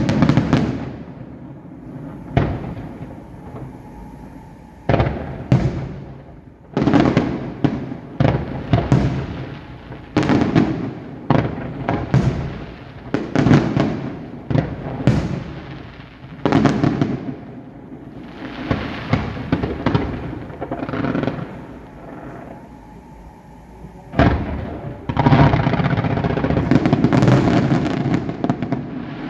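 Fireworks display: a rapid, irregular series of shell bursts, each bang fading off in a rumble. There is a brief lull, then a dense barrage of overlapping bursts near the end.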